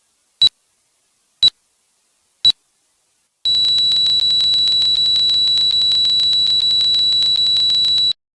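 Heart monitor sound effect: three short high beeps about a second apart, then one unbroken high tone for about four and a half seconds that cuts off suddenly. This is the flatline, the sign that the heart has stopped.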